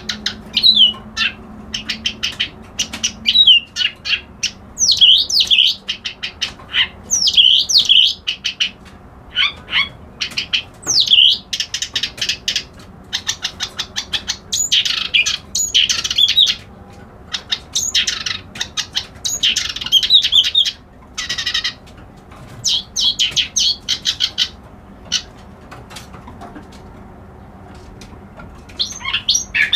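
Kerak basi alis putih, a reed warbler, singing: phrase after phrase of rapid chattering notes and sweeping whistles, with short pauses between them and a few seconds' lull near the end.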